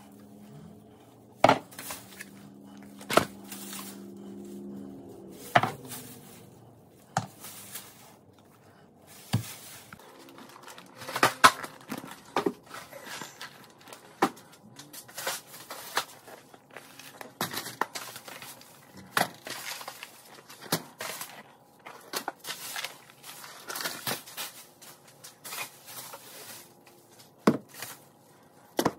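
Groceries being unpacked by hand: thin plastic shopping bags rustling and crinkling, with cans and jars set down in sharp knocks and clunks, one to three a second. A steady low hum runs under it for the first several seconds.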